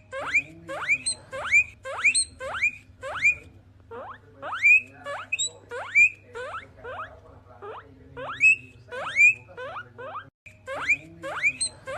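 Guinea pig wheeking: a long run of loud, sharply rising whistles, about two a second, with a brief break near the end.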